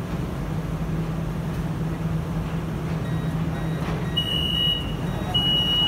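Steady low hum of a metro train and station, then about four seconds in a high-pitched door-closing warning tone, with two long beeps.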